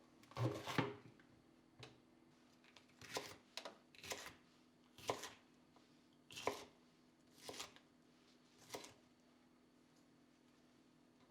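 Kitchen knife cutting food on a cutting board: about nine separate, unhurried cuts, roughly one a second, each a short knock of the blade on the board. A steady faint low hum sits underneath.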